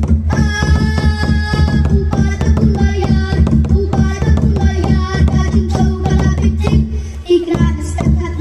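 Large barrel drum struck with a stick in repeated strokes, under a voice singing held notes, both amplified through microphones.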